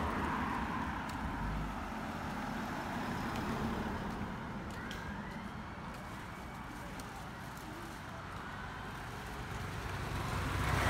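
Road vehicles passing, the noise swelling as one goes by near the start and another near the end.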